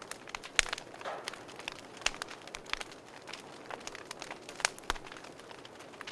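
Fire crackling: irregular sharp pops and snaps over a soft steady hiss, with a few louder pops about half a second in, around two seconds and near five seconds.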